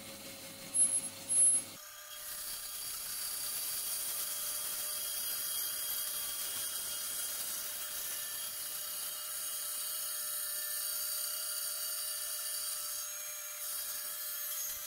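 Floor-standing Harvey bandsaw running, its blade resawing a thin veneer slice off an old wooden block with a steady sawing hiss. Two brief high chirps come about a second in, before the steady cut.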